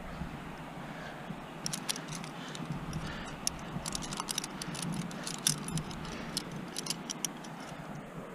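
Metal climbing gear, carabiners and protection racked on a harness, clinking and jangling in a quick run of small metallic clicks as the climber moves. The clinking starts about two seconds in and stops near the end.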